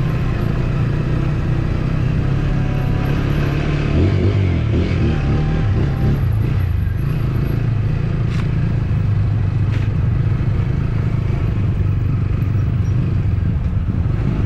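TVS Apache RTR motorcycle's single-cylinder engine running at low speed, heard from the rider's seat while riding over a rough, rocky dirt track. The engine note drops about four seconds in, and there are two sharp knocks later on.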